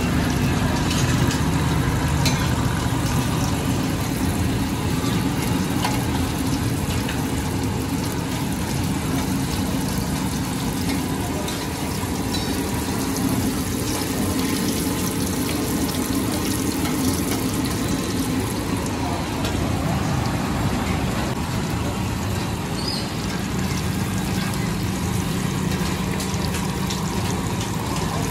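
Egg-coated tikkis frying in a shallow pool of hot oil on a large flat iron tawa, a steady sizzling hiss with a low steady hum underneath.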